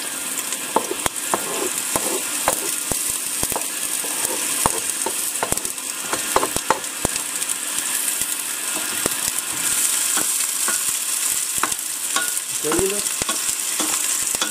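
Chopped onions sizzling in hot oil in a stainless steel pot, a steady hiss that picks up a little about two-thirds in. Frequent sharp clicks and scrapes of a spoon stirring against the metal pot run through it.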